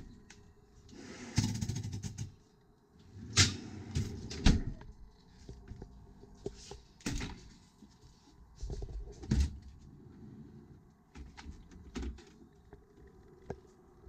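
A stainless French-door refrigerator's freezer drawer and doors being opened and handled: irregular knocks and clunks of the drawer, doors and plastic bins, with short rustles between them.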